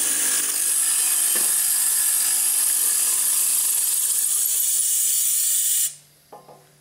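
Compressed-air blower on a hollow chisel morticer hissing steadily over the machine's motor hum, with a single knock about a second and a half in. The air hiss cuts off suddenly near the end, leaving the faint hum of the morticer.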